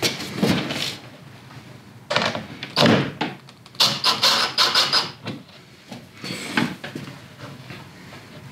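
Cordless drill/driver driving wood screws into a plywood baseboard in several short bursts of the motor.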